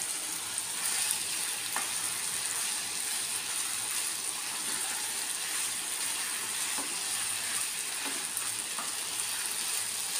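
Prawns with capsicum and onion frying in a nonstick pan with a steady sizzle, stirred with a wooden spatula that scrapes and taps against the pan a few times.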